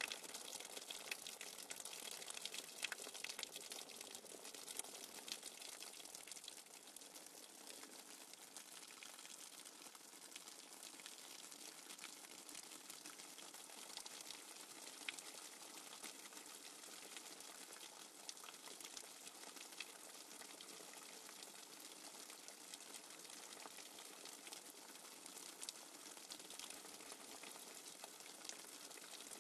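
Faint, steady hiss of flowing water from a nature-sounds backing track, with many small crackles and no rhythm.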